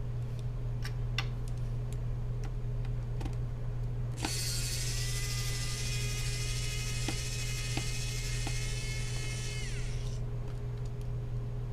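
Light clicks of small parts being handled, then about four seconds in a small electric screwdriver motor whines for about six seconds, its pitch dropping as it stops. A steady low hum runs underneath.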